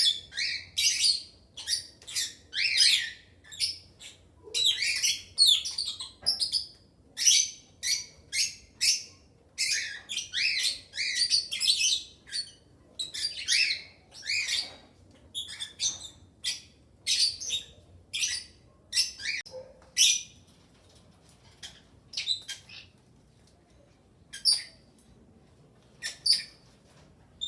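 A mixed aviary of lovebirds, cockatiels and budgerigars calling with short, sharp, high chirps and shrieks in quick succession. The calls thin out to a few single calls over the last several seconds.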